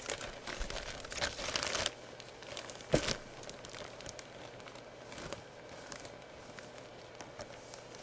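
Clear plastic bag around a hockey jersey crinkling as it is handled, thickest in the first two seconds. A single sharp knock about three seconds in, then scattered faint crinkles.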